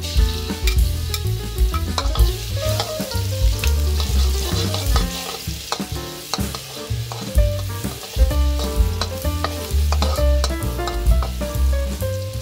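Chopped garlic frying in hot oil in a wok, sizzling, with a spatula scraping and knocking against the wok as it is stirred.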